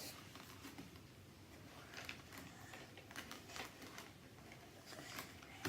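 Faint, irregular soft squelches and scrapes of slime being stirred in a mixing bowl.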